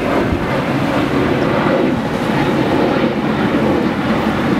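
Evinrude outboard motor running steadily as a center-console boat passes close by, mixed with the rush of its wake.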